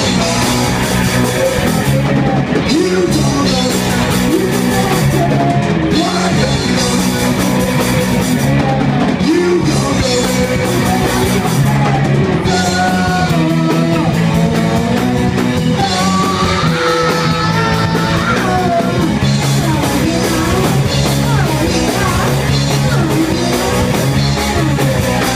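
Live punk rock band playing a song: electric guitar, bass guitar and drum kit, with sung vocals.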